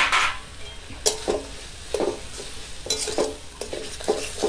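Metal spatula scraping and knocking against a kadai in uneven strokes, about one or two a second, as a thick spiced masala with chopped tomatoes is stirred and fried, with a sizzle underneath.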